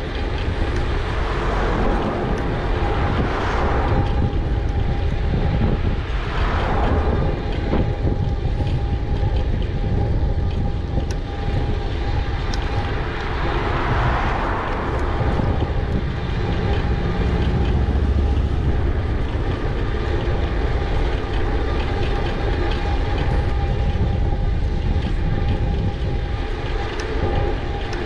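Steady wind rumble and road noise from riding an e-bike, picked up by the action camera's microphone, with a faint steady whine running through it and a few louder swells of noise.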